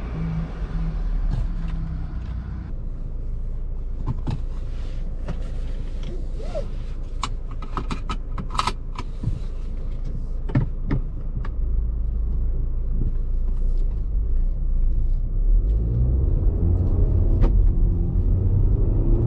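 Audi Q3's 2.0 TFSI turbocharged four-cylinder petrol engine heard from inside the cabin. It hums steadily at first, then gives way to a low road rumble with scattered clicks and knocks. Near the end the engine note rises as the car accelerates.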